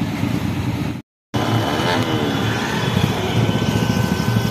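Engines of a group of motorcycles and scooters running at low speed, a steady low rumble that cuts out completely for a moment about a second in.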